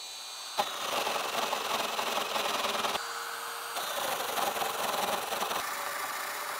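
Festool Domino joiner running with a high, steady motor whine, plunge-cutting mortises into wood twice. A rough cutting noise starts about half a second in and lasts about two and a half seconds. A second cut runs from about four seconds in for nearly two seconds, with the motor whining freely between and after the cuts.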